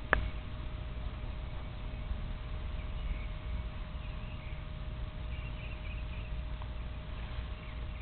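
Handling noise on a handheld camera: a low steady rumble with one sharp click just after the start and a faint steady hum throughout. A few faint high chirps come midway.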